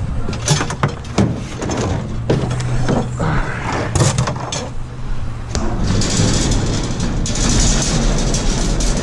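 A plastic bucket with metal grabber tools in it knocks and rattles as it is lifted and carried. A steady hiss comes in about six seconds in.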